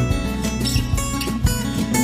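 Background music: an acoustic guitar song with strummed and plucked chords.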